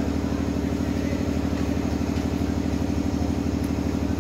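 An engine running steadily at low speed with an even, rapid throb.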